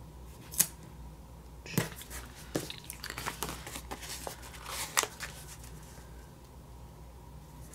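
Paper stickers being peeled from their backing sheet and pressed onto a planner page: scattered light paper crackles and taps, the sharpest about half a second in and about five seconds in.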